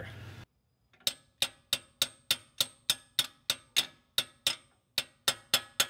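A steady run of about seventeen evenly spaced ticks, some three and a half a second, each with a short ringing tail. The ticks start about a second in, after a brief dead silence.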